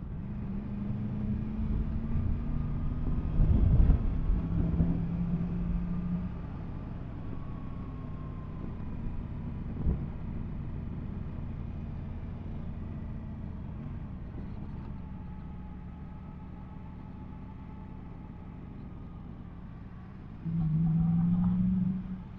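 Yamaha MT-10 SP motorcycle's crossplane inline-four engine running at steady low revs while riding, with wind and road rumble. The engine note grows louder for about a second and a half near the end.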